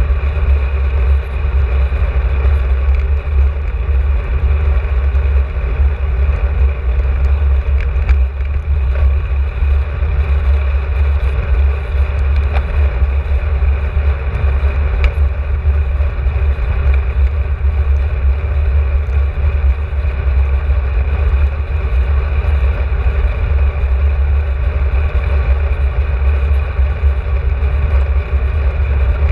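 Wind buffeting the microphone of a camera on a moving bicycle: a loud, steady low rumble with a hiss above it.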